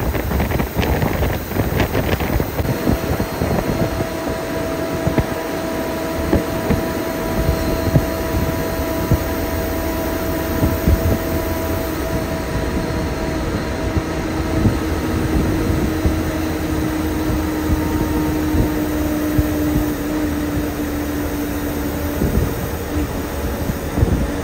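Inside the cabin of a cruising air-conditioned bus: a steady engine and road rumble with air-conditioning hum, and a faint whine that slowly drops in pitch and fades out near the end.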